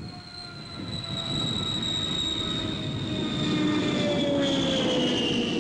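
Propeller airliner rolling along the runway, its engines giving a steady high whine over a broad rumble. The whine and a lower drone both fall slowly in pitch as the aircraft goes by, growing louder over the first second or so.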